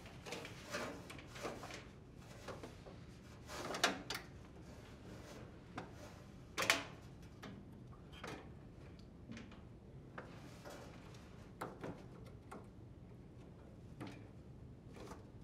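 Faint handling noises of a dryer drive belt being looped by hand around the idler pulley and motor shaft: scattered light clicks, knocks and rubs, the loudest just before 4 seconds and near 7 seconds.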